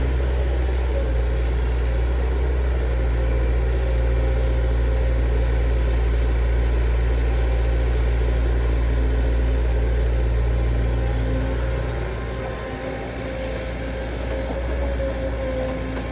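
Heavy diesel engine of construction machinery running steadily with a deep, low drone, easing off about twelve seconds in and picking up again near the end.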